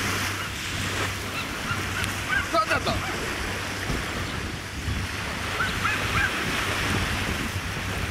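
Small waves washing onto a sandy shore with wind, over a low steady hum, and a few short high-pitched calls twice.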